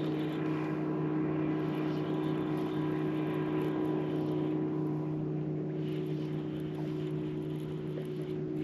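Electric bow-mounted trolling motor running, a steady even hum that holds its pitch.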